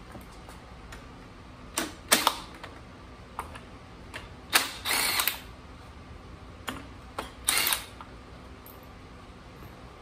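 Cordless drill-driver with a half-inch socket spinning out the bolts that hold the flywheel fan on a Briggs & Stratton engine. It runs in short bursts, the longest about half a second around five seconds in, with clicks between.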